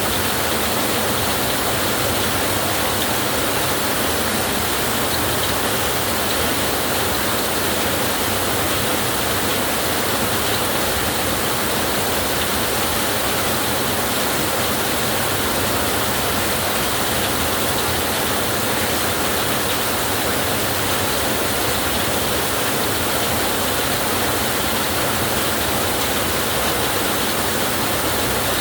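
Heavy rain falling on a tin roof: a steady, even rush with no changes and no thunder claps.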